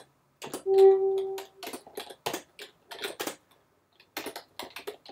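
Typing on a computer keyboard, a run of quick uneven key clicks as a shell command is entered. About half a second in, a steady tone sounds for just under a second, louder than the typing.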